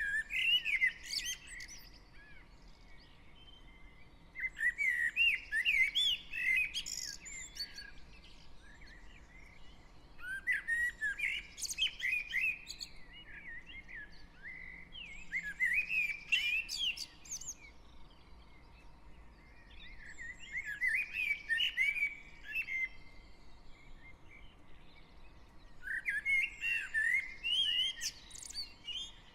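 Garden songbird singing in the dawn chorus: six short, fast warbling phrases of two to three seconds each, repeated about every five seconds, with quick high notes and short pauses between them.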